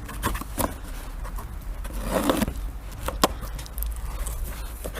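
Cardboard boxes and packaging being handled: scattered taps and knocks, a rustle about two seconds in, and a sharp click a little after three seconds.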